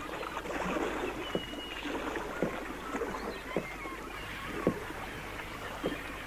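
Lake water lapping and slapping against the wooden pier's pilings, with a short splash about once a second, and a few brief high bird chirps above it.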